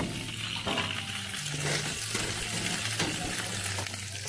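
Meat sizzling on a foil-lined gas barbecue grill: a steady crackling hiss.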